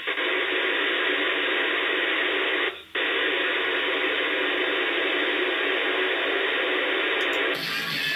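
Steady receiver hiss from an RTL-SDR software-defined radio tuned across the 11-metre CB band, played through small desktop speakers. The hiss breaks off briefly about three seconds in and stops near the end.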